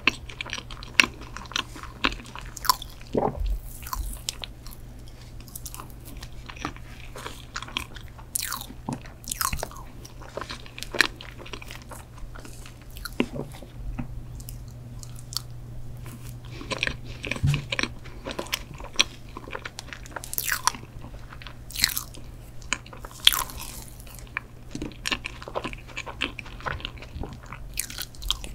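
Close-miked mouth sounds of eating soft chocolate mousse cake and ice cream: wet chewing and lip smacks with frequent sharp clicks, over a steady low hum.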